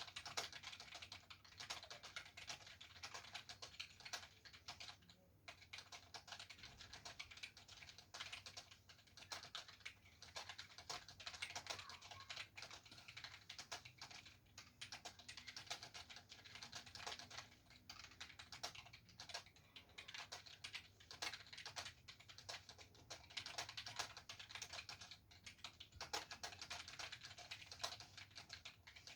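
Fast, continuous typing on a computer keyboard during a typing speed test: a rapid stream of key clicks at about 97 words per minute, with a couple of brief pauses.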